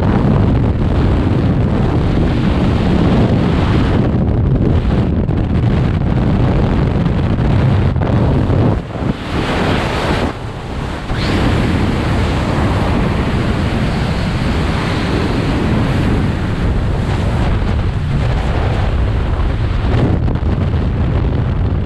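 Rushing wind of skydiving freefall blasting over a body-mounted camera's microphone, loud and steady, with two short dips about nine and ten and a half seconds in as the body turns in the airflow.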